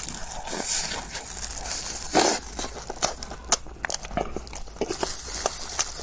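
Close-up eating sounds of biting into and chewing a crumb-coated ice cream bar: wet mouth clicks and smacks, with one louder, longer sound about two seconds in.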